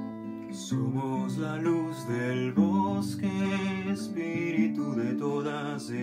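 Acoustic guitar strummed in steady chords, with a man's singing voice coming in over it about a second in.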